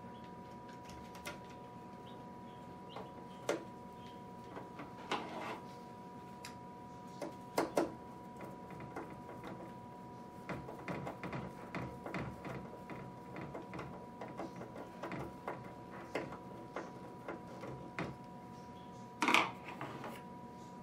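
Scattered small clicks, taps and rustles of hands and a small screwdriver working wire connectors on the plastic control unit of a Brinsea Ovation 56 EX incubator, with a louder rustle near the end. A steady faint tone runs underneath.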